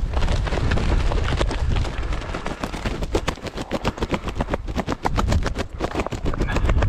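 Dense, irregular crackling and rustling over gusty wind buffeting on the microphone.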